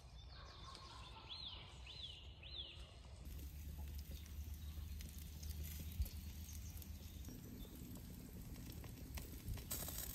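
A bird calls three times, short notes rising and falling, about half a second apart. Then a steady low rumble with faint scattered crackles from a whole goose roasting on a wire grill grate over hot embers.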